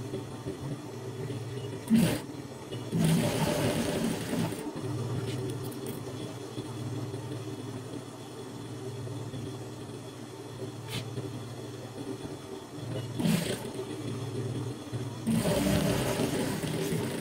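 Sewing machine stitching patchwork fabric in two short runs, one a few seconds in and one near the end, over a steady low hum, with a few light clicks between runs.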